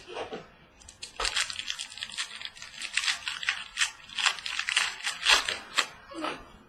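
Crinkling and crackling of a trading-card pack wrapper being torn open and handled, a dense run of sharp rustles and clicks starting about a second in and fading out near the end.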